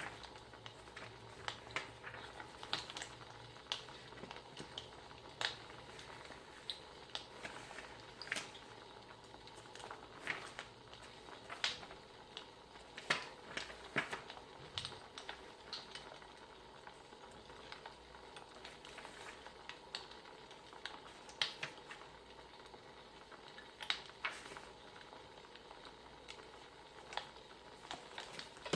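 Wood fire crackling: irregular sharp pops and snaps over a soft steady hiss.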